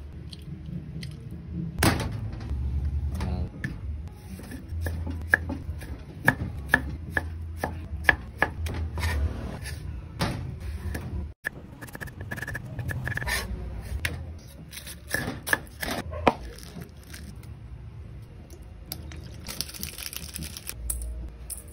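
Knife chopping on a cutting board: a run of sharp, irregular strikes with some scraping.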